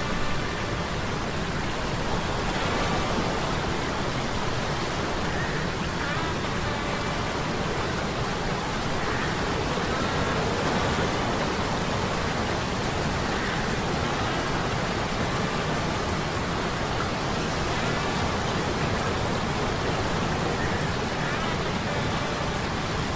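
Sea storm sound effect: a steady, even hiss like heavy rain and surf, with faint short high tones rising out of it every few seconds.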